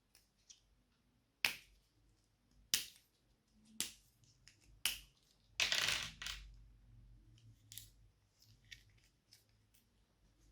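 Slime being squeezed and worked by hand: four sharp pops of trapped air about a second apart, then a longer, louder squelch about halfway through, then fainter crackles and clicks.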